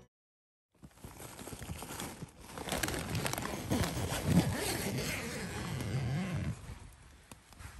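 Rustling of nylon tent fabric and bedding, with handling knocks, as someone moves close to the camera inside a snow-laden tent. It starts after about a second of silence and eases off near the end.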